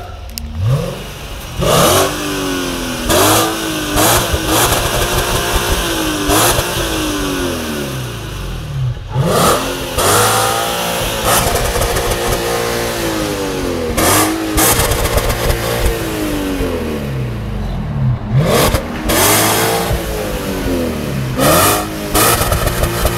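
Volkswagen Phaeton's 4.2-litre V8 free-revved hard again and again, each rev climbing fast to the top and falling back, with loud harsh blasts at the peaks as it hits the rev limiter.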